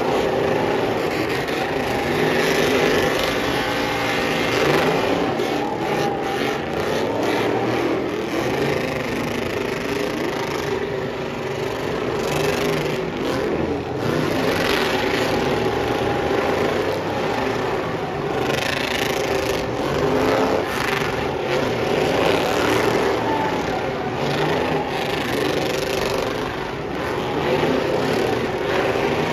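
Several pickup truck engines held at high revs while their rear tyres spin through burnouts and donuts, a continuous loud mix of engine noise and tyre noise that swells and eases.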